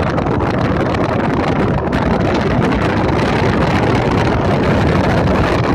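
Steady rush of wind over the microphone at a moving car's open side window, mixed with the car's road and engine noise.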